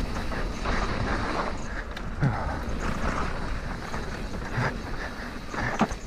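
Mountain bike descending dry, loose singletrack: the tyres rolling and crunching over dirt and stones, with frequent knocks and rattles of the bike over bumps and a steady low rumble of wind on the chin-mounted camera.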